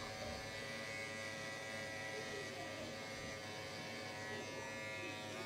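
Electric hair clippers buzzing steadily as they cut a boy's short hair, then stopping right at the end.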